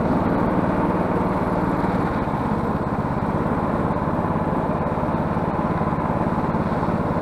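Snowmobile engine running steadily as the machine rides along a snow track, with no revving or change in speed.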